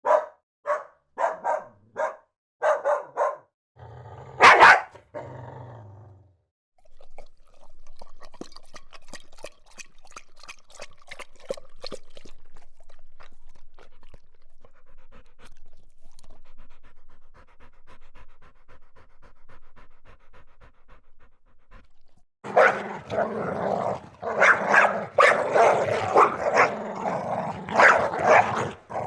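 Dog barking sound effects: a run of short, separate barks, a quieter stretch of quick faint sounds, then loud, dense barking from about 22 seconds in.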